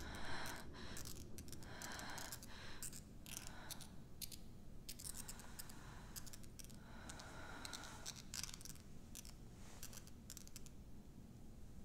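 Faint, sparse scratching and clicking in clusters, with soft airy swells, forming an eerie horror-score texture. The scratches thin out and stop shortly before the end.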